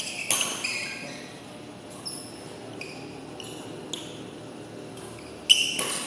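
Badminton shoes squeaking on the court floor in short, high squeals, with sharp racket hits on the shuttlecock, the loudest about five and a half seconds in.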